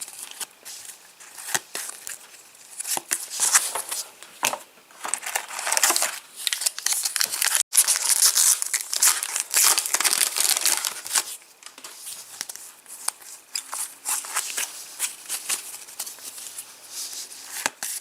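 Match Attax trading-card packet wrappers being torn open and crinkled in the hands, a continuous crackling rustle that is busiest in the middle.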